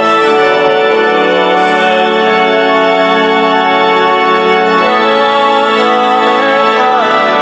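Electronic keyboard played with an organ sound: sustained chords held without decay, changing a few times, part of a simple repeating chord progression.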